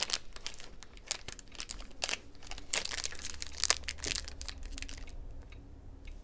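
Packaging crinkled and rustled by hand, a run of irregular sharp crackles that dies down about five seconds in.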